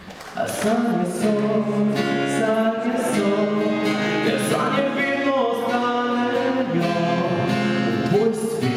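A man singing a song to his own acoustic guitar, performed live into a microphone; the music starts a moment in.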